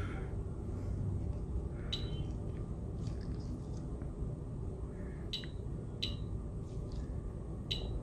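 Endo Radar Plus endomotor control unit beeping four short high beeps as its keypad buttons are pressed, over a steady low background rumble.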